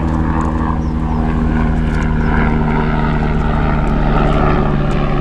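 Honey bees buzzing around the hive, a loud, steady hum.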